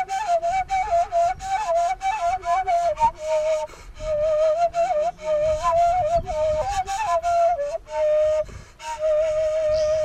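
Background music: a solo flute-like wind instrument playing an ornamented melody with quick turns, settling on a long held note near the end, over light percussive taps.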